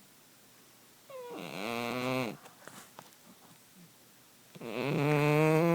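A pet animal's long, drawn-out vocal call, heard twice: once about a second in and again, louder, near the end.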